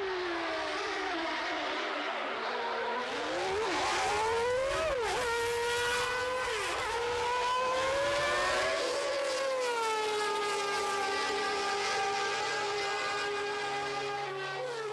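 Recreated sound of the McLaren MP4/5's Honda V10 Formula One engine, rebuilt from lap telemetry and recorded engine tones. The pitch climbs and drops sharply several times in the first seven seconds as it revs and changes gear, then falls in a long slide about nine seconds in and holds a lower, steadier note to the end.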